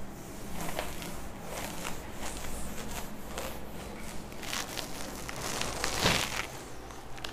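A duster wiping across a whiteboard in repeated scraping strokes, then a sharper knock about six seconds in.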